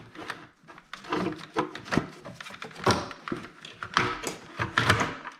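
Irregular knocks, clicks and rattles of intake parts being handled and shifted into place while fitting a throttle body and intake manifold.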